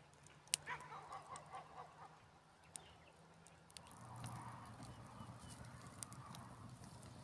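A dog gives a faint, quick run of about six short calls about a second in. Soft rustling follows near the end.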